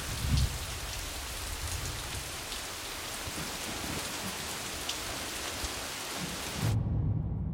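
Heavy rain pouring down onto rock, a dense even hiss, with a low rumble shortly after the start and again near the end. The rain hiss cuts off suddenly near the end, leaving only the low rumble.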